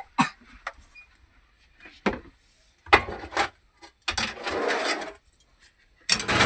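Utensil scraping and knocking against a cooking pan as cooked, broken-up snapper is shifted onto a plate: a few short knocks, then longer scrapes about three seconds in, from four to five seconds, and again near the end.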